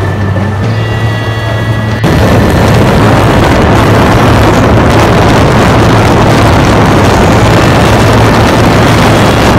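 Open-top Caterham Seven with a 1100 Honda Blackbird motorcycle engine driving at speed: a steady engine drone. About two seconds in, a sudden jump to loud, distorted wind buffeting on the microphone, with the engine still running underneath.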